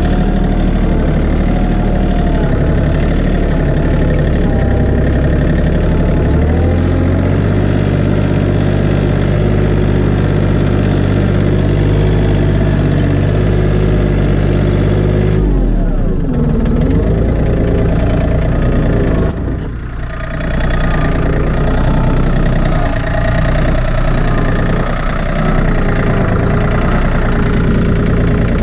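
John Deere compact tractor engine running as the tractor drives with a round hay bale on its front loader. The engine note steps up about a quarter of the way in, drops and wavers around the middle, then settles back to a steady run.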